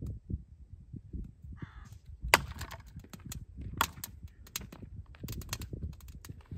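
Hatchet chopping into a log round on a chopping block: a series of sharp wooden knocks, the loudest about two seconds in, with lighter taps as the blade is worked into the wood.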